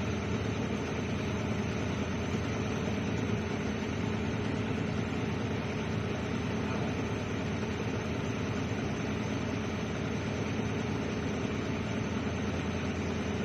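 Engine running steadily. It is a hard-starting engine that the mechanics judge to have worn piston rings and a scuffed cylinder liner.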